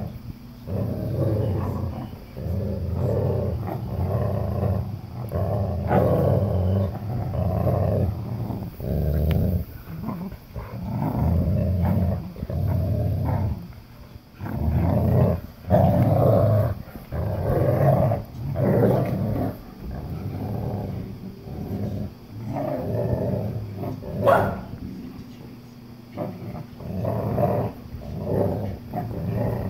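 Two dogs play-growling almost without a break while tugging a plush toy between them in a tug-of-war game, in rumbling bouts of a second or so. One brief sharp sound, the loudest moment, about two-thirds through.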